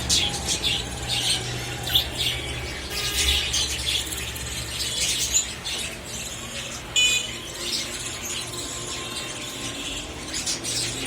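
Baby birds begging to be fed: many short, high, squeaky calls, with one clearer chirp about seven seconds in.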